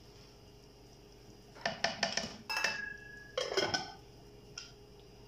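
Metal cookware clattering: a steel pot lid being set on a cooking pot and a ladle laid on it, several sharp clinks with one short metallic ring, starting about a second and a half in.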